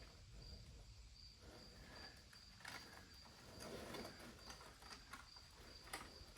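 Near silence: faint insects chirring in a steady, pulsing high trill, with a few soft clicks.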